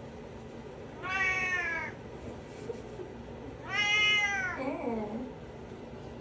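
A cat meowing twice, each meow under a second long and falling slightly in pitch, the second one about three seconds after the first, over a steady background hum.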